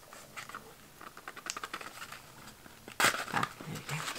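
Crinkling and rustling of bubble wrap, tissue and gift wrap as wrapped presents are handled in a cardboard parcel. About three seconds in comes a short, louder burst of noise.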